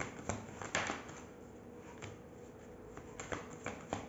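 Tarot cards being handled, with a card laid down on the table: a few short soft slaps and clicks, spread across a few seconds.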